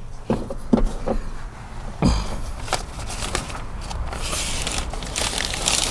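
Handling noises from reassembling a van's sliding-door parts: a few light knocks, a louder thump about two seconds in, then a rustling, crinkling sound near the end.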